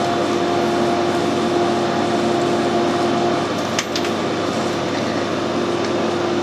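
Metal lathe running steadily with a constant hum while a bolt blank is parted off to length. A sharp click about four seconds in.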